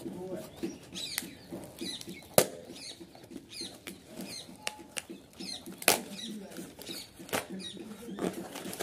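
Small cardboard courier box being handled and picked open by hand: scratching and rustling with short high squeaks and scattered clicks, two sharp clicks standing out about two and a half and six seconds in.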